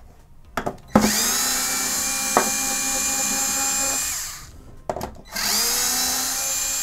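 Small electric screwdriver motor running in two bursts, about three seconds and then a shorter run near the end, backing out two hard-drive caddy screws; a sharp click as the first burst starts.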